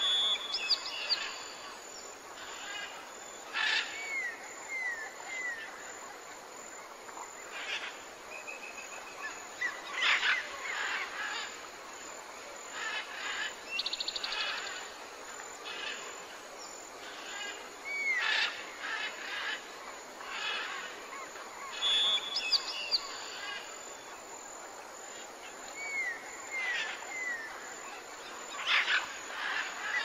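Tropical jungle birds calling over a steady background hiss: scattered whistles and calls from several birds. These include a run of three or four short curling whistles a few seconds in and again near the end, and a brief rapid trill about halfway through.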